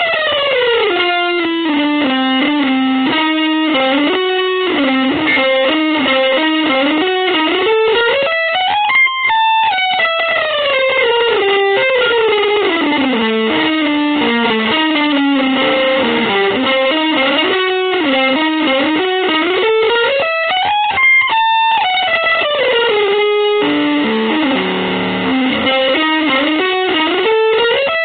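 Electric guitar playing fast runs of single notes that sweep down and climb back up in long waves, with a denser, lower chordal stretch near the end.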